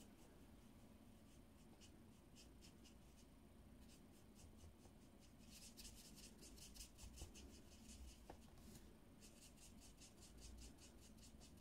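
Faint scratching of a felt-tip marker's tip on paper as a small die-cut piece is coloured in: a few separate strokes at first, then quick runs of short back-and-forth strokes about halfway through and again near the end.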